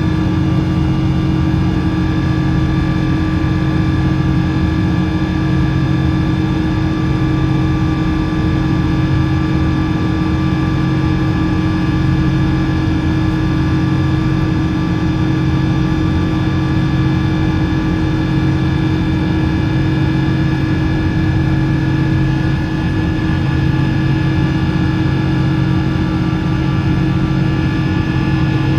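Rolls-Royce Trent 800 high-bypass turbofan of a Boeing 777-200ER running at a steady power setting: an even rush of noise with several held tones that neither rise nor fall.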